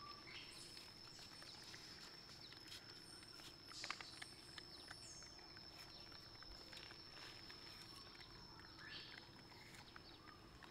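Near silence with faint, scattered soft clicks and crunches of baby macaques chewing apple pieces, one louder crunch about four seconds in, over a steady faint high-pitched whine.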